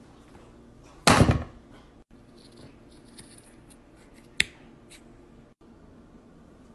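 Scissors cutting into a disposable surgical face mask: faint scratchy snipping and a few sharp clicks of the blades closing, the sharpest about four and a half seconds in. A louder short thump comes about a second in.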